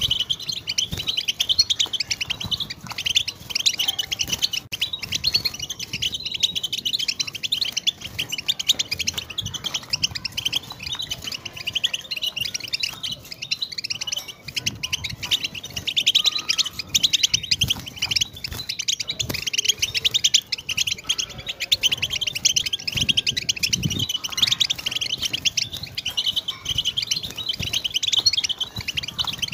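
European goldfinch singing: a fast, unbroken twittering song of trills and chattering notes that runs on without pauses.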